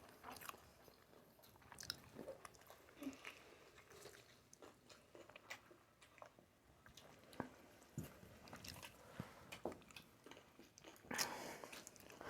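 Quiet, close-up mouth sounds of someone chewing sushi: scattered soft smacks and small clicks, a little louder near the end.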